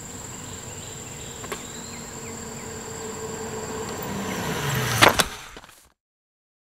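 A steady high-pitched trill of insects. A loaded touring bicycle grows louder as it approaches and goes by close about five seconds in, with two sharp clicks as it passes. Then the sound cuts off to silence.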